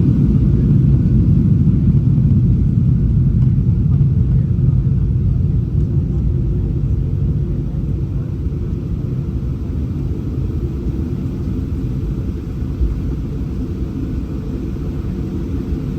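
Boeing 737-800's CFM56-7B turbofan engines at high power during takeoff, heard inside the cabin as a loud, steady low rumble that eases slightly about halfway through.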